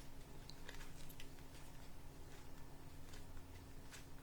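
Faint scattered clicks and light flicks of trading cards being handled and slid through the hands, over a steady low electrical hum.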